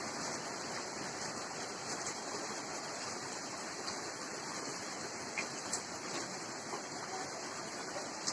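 Steady rain falling, an even hiss of water with a few faint taps.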